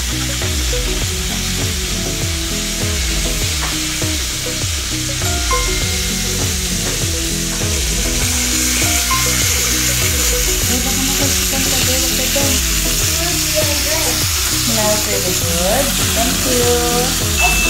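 Chicken pieces sizzling in a hot Saladmaster electric skillet, frying in their own fat without added oil, as they are turned with metal tongs. Background music with a steady beat runs underneath.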